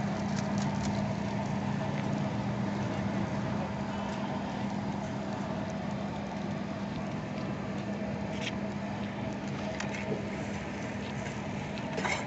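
Instant noodles and egg frying in a large iron wok: a steady sizzle over a low hum, with a few sharp clinks of the metal spatula against the pan in the second half.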